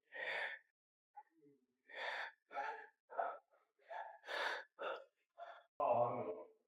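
A person breathing hard in sharp, breathy gasps and exhales, about nine at irregular intervals, ending in a short voiced grunt-like breath near the end.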